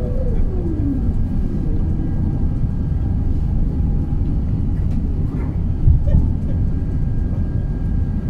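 Steady low cabin rumble of an Airbus A380 on approach, airflow and its Rolls-Royce Trent 900 engines heard from a window seat. In the first second a whine glides down in pitch, and about six seconds in there is a short low thump.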